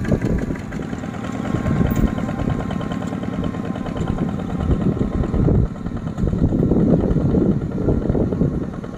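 Single-cylinder diesel engine of a two-wheel walking tractor running steadily with a fast chugging beat while it pulls a trailer loaded with rice sacks.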